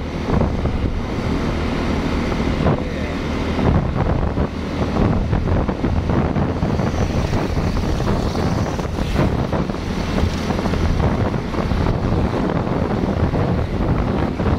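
Wind buffeting the microphone on a moving motorcycle, with the bike's engine and road noise running steadily underneath.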